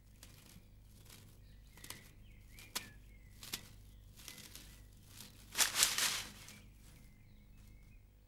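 Cartoon foley of leaves and undergrowth rustling in short bursts, the longest and loudest a little past halfway. Faint bird chirps in the background.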